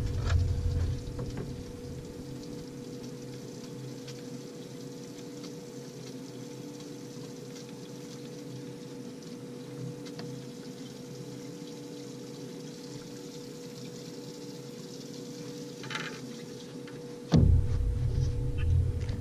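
Bass boat's live well pump running with a steady hum while water pours into the well. A loud low rumble comes in near the end.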